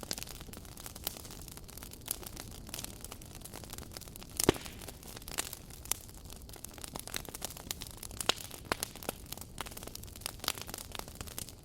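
Wood fire crackling: irregular sharp pops and snaps over a low steady hiss, with one louder pop about four and a half seconds in.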